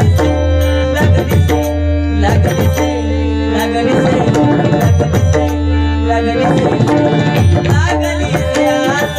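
Devotional bhajan music: a male voice singing an abhang over a sustained harmonium and a steady beat of hand-drum strokes with deep bass tones.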